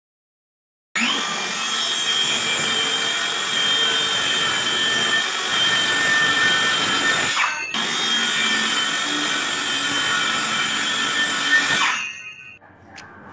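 Cordless circular saw cutting through plywood: a steady, loud, high whine that starts abruptly about a second in, drops out for an instant midway, and stops shortly before the end.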